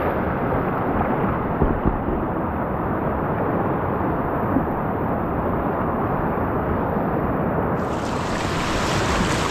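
Whitewater rapids rushing steadily around a kayak. The sound is dull, with its upper hiss missing, until it brightens about eight seconds in.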